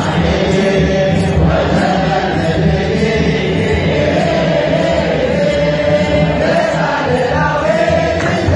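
A large group of men chanting an Orthodox Tewahedo church hymn together, with a steady beat about twice a second.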